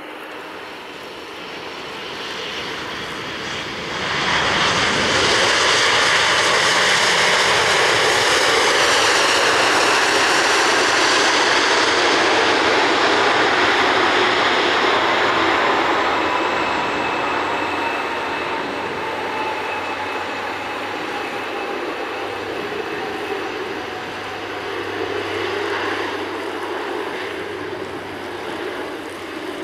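Jet airliner passing close by: the engine noise rises sharply about four seconds in and stays loud for about ten seconds. It then fades slowly, with a falling whine as the aircraft moves away.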